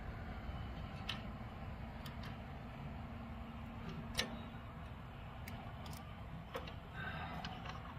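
Light, irregular clicks and ticks of a saw chain's metal links being handled and seated as the chain is fitted onto a chainsaw bar, over a low background rumble.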